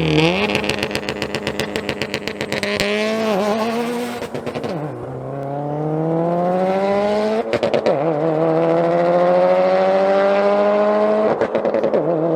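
Car engine accelerating hard through the gears: a rapid pulsing, wavering note in the first few seconds, then a steadily rising engine note that drops at an upshift about two-thirds of the way in and again near the end, climbing again after each shift.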